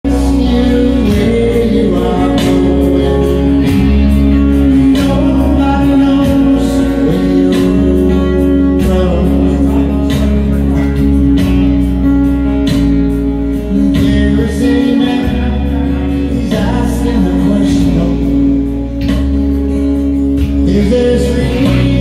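Live band playing through a PA: a singer over guitars with a steady beat.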